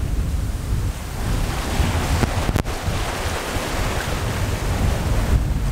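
Wind on the microphone over the rush of choppy sea water breaking along a sailboat's hull under sail.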